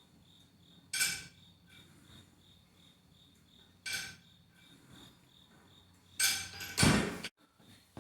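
Metal clanks about every three seconds, the last one doubled, from the weight plates on a power rack's cable pulley attachment being lifted and set down during lat pulldown or low row reps. A cricket chirps steadily throughout.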